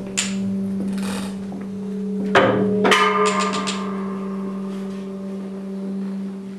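Free improvised ensemble music: a steady low drone with a few held tones runs throughout, while short struck and scraped sounds come and go. The loudest is a pair of strikes about two and a half to three seconds in that ring on, followed by a quick run of four or five clicks.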